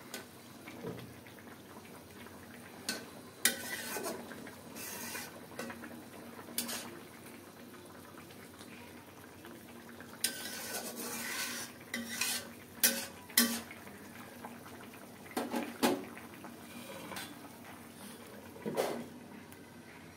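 A spoon scraping and clinking against a cooking pot in short bursts with pauses between, as fish pieces are stirred into a curry gravy.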